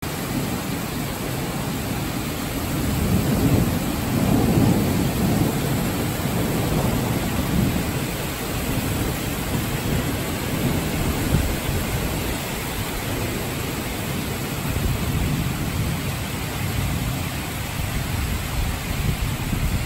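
Heavy rain pouring steadily in a violent thunderstorm, with a low rumble of thunder swelling about three seconds in and fading by about seven.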